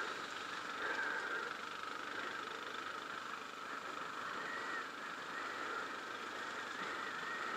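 Dirt bike's engine droning steadily at cruising speed, heard from a helmet-mounted camera with wind rushing over it.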